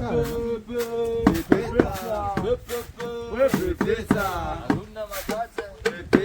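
People singing a pounding song with held notes while a pestle thuds into a wooden albizia mortar of dried coffee beans, knocking roughly twice a second.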